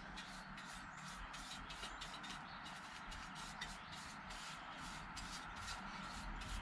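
Paintbrush strokes wiping liquid rust converter across a rusty steel motorcycle exhaust heat shield: a faint, rapid, even swish of bristles, about four or five strokes a second.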